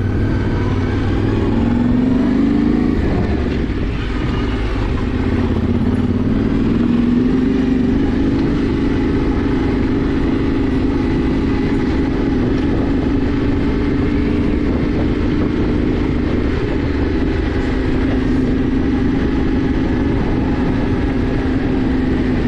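Yamaha Ténéré 700's parallel-twin engine running while the bike is ridden off-road. The revs rise about two seconds in, dip briefly, then hold a fairly steady pull with small throttle changes.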